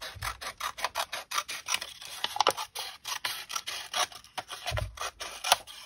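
Scissors snipping through several layers of accordion-folded paper: a quick run of short snips, about four or five a second.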